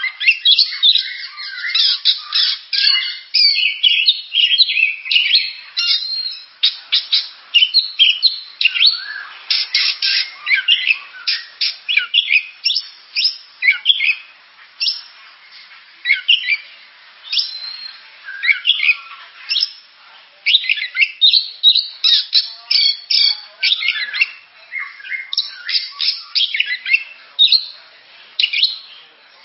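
Oriental magpie-robin (kacer) singing: a long, fast run of varied whistled and chattering notes, pausing briefly a few times.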